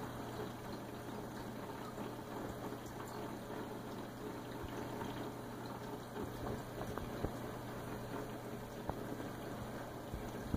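Reef aquarium running: a steady low hum with water moving and trickling, and a few faint clicks.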